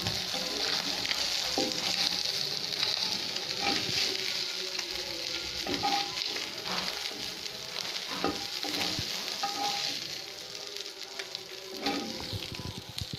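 Small tangra catfish frying in hot oil in a black iron kadai, a steady sizzle, while a metal spatula scrapes and taps against the pan every second or two as the crisp-fried fish are lifted out. The sizzle grows a little quieter near the end.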